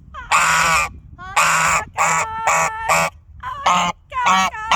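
Domestic goose honking repeatedly: a string of about seven short, loud honks at uneven intervals, the first one the longest. These are the contented sounds of a goose in a good mood.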